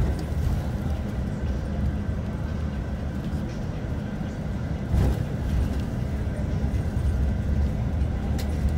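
Steady low engine and road rumble heard from inside a moving vehicle, with a single knock about five seconds in.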